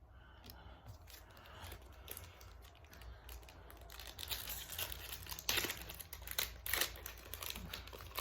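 Foil wrapper of a Yu-Gi-Oh! booster pack crinkling as it is torn open, a run of sharp crackles with two louder rips in the second half.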